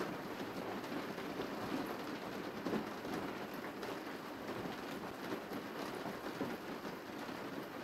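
Steady rain falling, a continuous hiss dotted with many small drop ticks.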